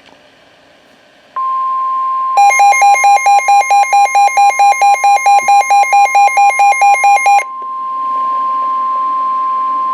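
NOAA Weather Radio warning alarm tone, a steady high tone near 1,000 Hz, starting about a second and a half in and holding to the end; it signals that a new warning broadcast follows. From about two and a half to seven and a half seconds in, the Midland WR120B receiver's own alert beeps pulse loudly over it, about five a second.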